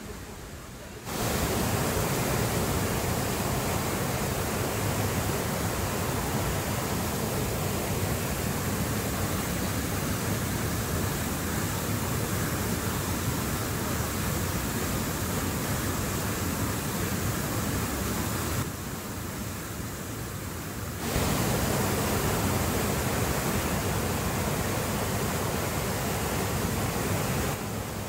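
White water of the Banias stream rushing over rocks and down small cascades: a steady, full rush that comes in about a second in, drops off for a couple of seconds about two-thirds of the way through, then returns at full strength.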